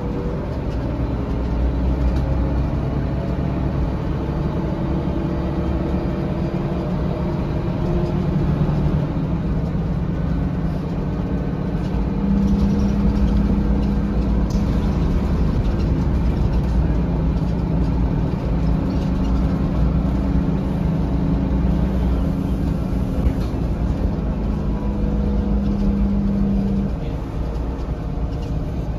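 Inside a 2004 Mercedes-Benz O500LE bus with a Volgren CR228L body, under way: the engine and drivetrain run continuously over road rumble. The engine note shifts as the bus changes speed, then holds a steady tone for much of the middle before dropping away near the end.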